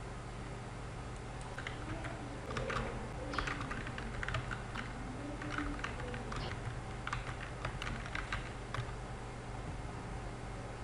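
Typing on a computer keyboard: a run of irregular key clicks that starts about a second and a half in and stops shortly before the end, over a steady low hum.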